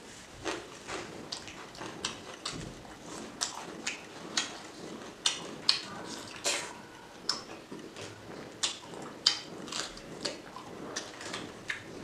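Close-miked chewing and mouth sounds of someone eating pork and rice by hand: short, irregular smacking clicks.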